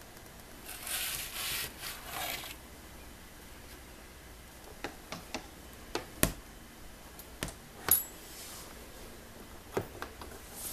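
Handling noises at a glass-fronted snake enclosure: a rubbing, scraping rustle for about two seconds near the start, then a string of sharp clicks and taps from metal feeding tongs and the enclosure's glass, two of them much louder than the rest.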